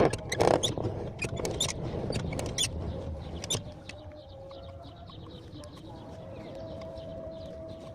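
Renault car door being worked, giving a series of sharp clicks and knocks over the first few seconds, then a quieter steady squeak-like tone. These are the noises the owner finds annoying when closing the door.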